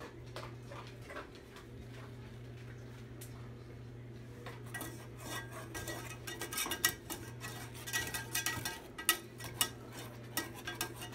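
Metal wire whisk stirring milk gravy in a Teflon nonstick saucepan, its wires clicking and scraping against the pan. The strokes are light at first and become quicker and louder from about halfway. A steady low hum runs underneath.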